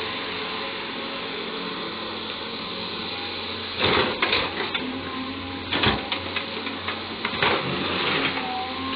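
A CAT 320D excavator's diesel engine running steadily. From about four seconds in, its steel bucket scrapes and clatters against the coal several times as it cleans the surface of the exposed coal seam.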